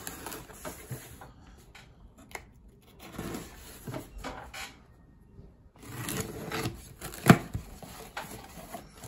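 A small knife slitting and scraping through packing tape on a cardboard box, with scratchy cuts, tape tearing and the box knocking on the wooden table; one sharp knock about seven seconds in.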